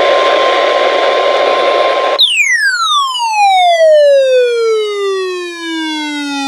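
Loud radio static with a faint steady tone in it, cut off after about two seconds. Then a siren-like tone glides steadily down from high to low over about four and a half seconds and stops abruptly.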